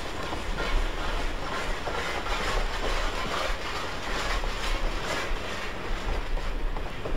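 2-8-0 (Consolidation) steam locomotive working hard on a grade, slow exhaust beats coming about once a second over a steady rush of steam and running noise.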